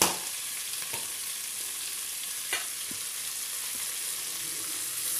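Sliced onions sizzling in oil and ghee in an open pressure cooker, a steady high hiss, as they fry until they soften and change colour. A sharp click at the very start and a few faint ticks.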